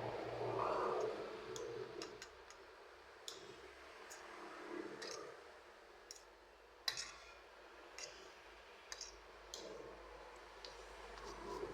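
Scattered, irregular light clicks and taps, about a dozen, over a faint background, with a louder rustling sound in the first second or so.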